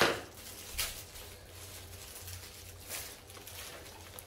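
Handling noises of small items and their packaging: a sharp rustle at the start, the loudest, then fainter ones about a second in and near three seconds in, over a faint low hum.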